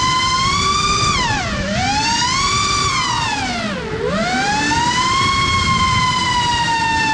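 FPV quadcopter's brushless motors and propellers whining steadily. The pitch sinks steeply twice, about one and a half and four seconds in, as the throttle eases off, then climbs back up each time.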